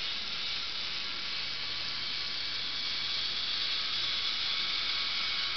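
LEGO Mindstorms NXT servo motors and plastic gear trains running steadily, a hissing whir that starts abruptly and cuts off near the end.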